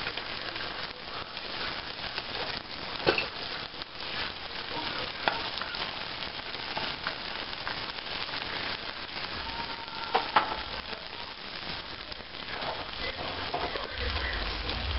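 Chopped onion and cilantro sizzling in hot oil in a small saucepan, with a dried chipotle chile frying among them. It is a steady crackle of fine pops, with a couple of louder pops.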